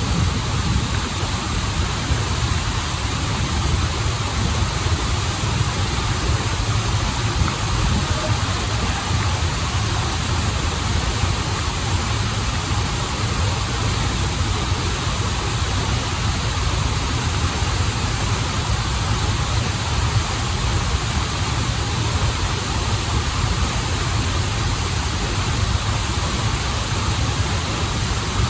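Steady rush of a waterfall and flowing stream, a constant low rumble with hiss above it.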